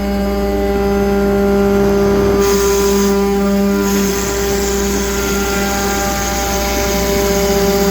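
MultiCam MG204 CNC router running, a steady machine hum and whine made of several held tones. A high hiss cuts in briefly about two and a half seconds in and comes back from about four seconds on.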